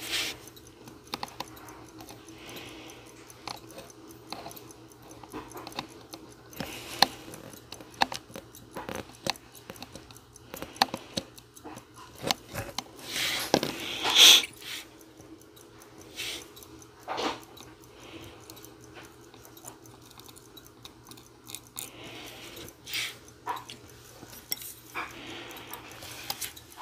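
Steady hum of a clothes dryer running, with scattered small clicks and scrapes as steel tweezers and fingers handle a watch movement in its holder. A louder noise lasting about a second comes about halfway through.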